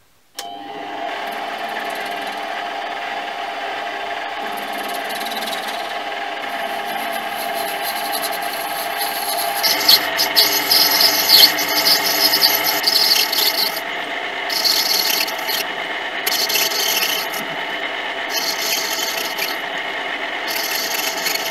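Small metal lathe starting up and running with a steady motor whine. About ten seconds in, the cutting tool begins turning down a brass rod, adding a high scraping hiss that comes and goes in passes.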